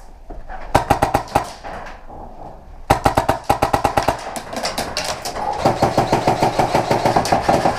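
Airsoft guns firing on full auto, a rapid clatter of about a dozen shots a second: a short burst about a second in, then a long continuous stream of fire from about three seconds in.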